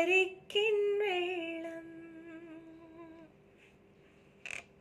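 A woman singing unaccompanied, holding the song's final note, which fades away about three seconds in. A brief soft noise follows near the end.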